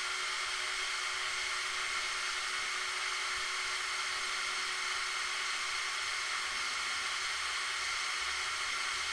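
Electric motors and gearing of a Mould King 17007 Liebherr LTM 11200 brick crane model running steadily as the main telescopic boom extends: an even whine with several held tones. The boom is moving smoothly without binding.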